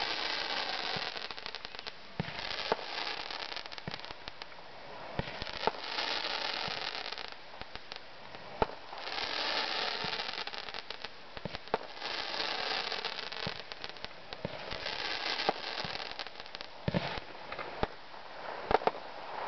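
Fireworks going off: stretches of hissing, crackling sparks lasting a second or so, broken by a sharp bang every couple of seconds.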